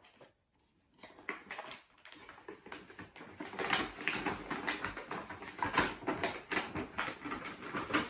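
Paper gift bag rustling and crinkling as hands rummage inside it, a rapid irregular crackle that starts about a second in and gets busier partway through.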